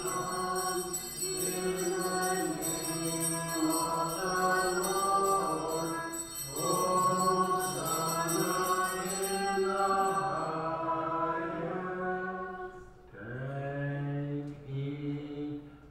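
Liturgical chant of the Divine Liturgy sung in held, shifting notes. About thirteen seconds in the singing breaks, and a lower male voice takes up a steady chant.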